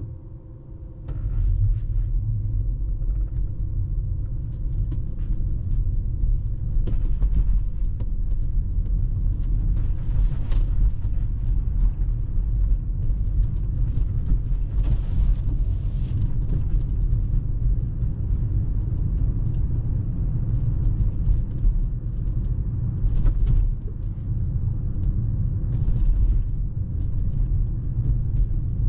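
Steady low rumble of a Tesla electric car driving on a snowy road, tyre and road noise with no engine sound, cutting in abruptly about a second in.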